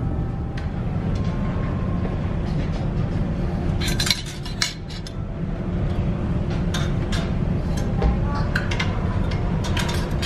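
Dishes and cutlery clinking at a buffet restaurant: scattered sharp clinks, thickest about four seconds in and again near the end, over a steady low hum.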